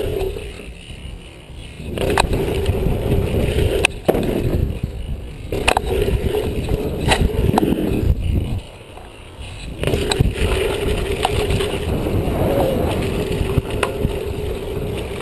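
Dirt-jump bike tyres rolling fast on packed dirt, with wind on the camera mounted on the rider. The rolling noise drops away for a second or more three times and comes back with sharp knocks, typical of the bike leaving and landing jumps.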